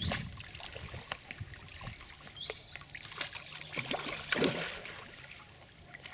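Lake water splashing and trickling, with scattered sharp clicks and a louder splash about four and a half seconds in; a short bird chirp about two and a half seconds in.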